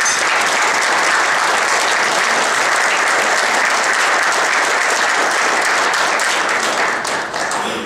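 Audience applauding: a dense round of clapping that starts at once, holds steady, and tapers off near the end.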